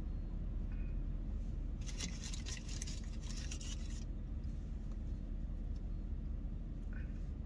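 Paper food wrapper crinkling and rustling for about two seconds as a pancake wrap is rewrapped by hand, over a steady low rumble inside a truck cab.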